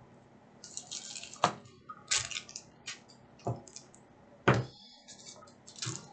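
Handling noises on a tabletop: a few sharp knocks and clicks, the loudest about four and a half seconds in, with short bursts of rustling between them.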